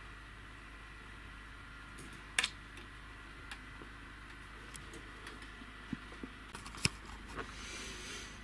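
Sharp little clicks and ticks of snare wire and hand tools being handled on a wooden table while wire snares are made, loudest as a double click about two and a half seconds in and a single click near seven seconds. A faint steady hum runs underneath.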